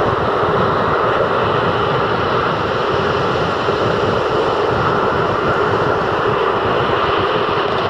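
Rough sea surf breaking continuously on a sandy shore, a loud, steady wash of waves, with wind gusting against the microphone.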